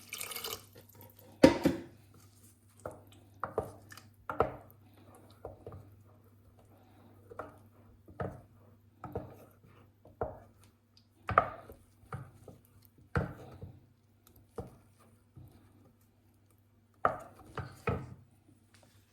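A utensil knocks against a cooking pot again and again, roughly once a second, as the soup is worked in the pot. A faint steady low hum runs underneath.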